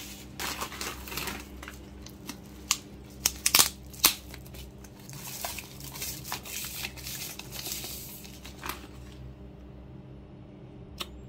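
Plastic packaging being crinkled and torn open by hand, with a few sharp clicks and taps about three to four seconds in. The handling stops about nine seconds in, leaving a steady low hum.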